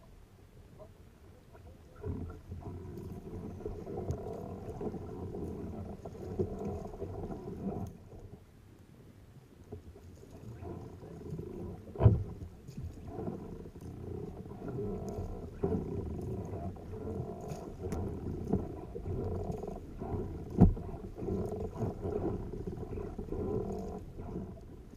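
Muffled low rumbling of water moving around a kayak, coming and going in waves, with two sharp knocks, one about twelve seconds in and one near twenty-one seconds.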